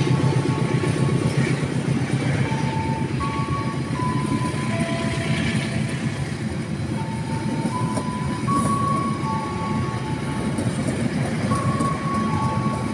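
Argo Parahyangan passenger train carriages rolling past as the train departs, a steady rumble of wheels on rail. Over it runs a simple melody of clear held notes that step from pitch to pitch.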